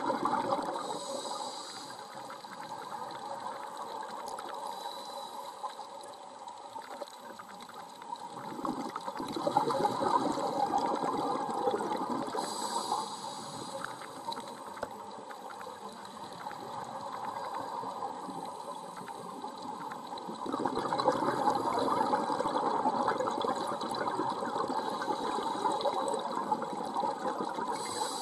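Scuba diver breathing through a regulator underwater: a brief hiss on each inhalation and long gurgling rushes of exhaled bubbles, rising and falling in slow cycles.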